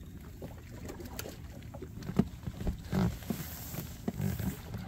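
Scattered knocks and thumps on an aluminium fishing boat as the anglers move about and handle gear, the sharpest knock about two seconds in and heavier thumps about three and four seconds in.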